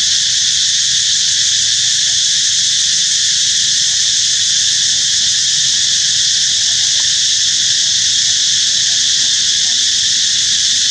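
Loud, steady, high-pitched drone of an insect chorus, unbroken and without any rhythm.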